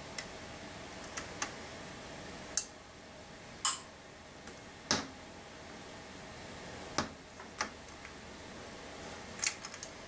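Irregular sharp clicks and knocks from an AMD CPU heatsink and its latch clip being handled and pressed against the socket's plastic retention bracket as the cooler is seated and latched. There are about ten single clicks, with a quick run of several near the end.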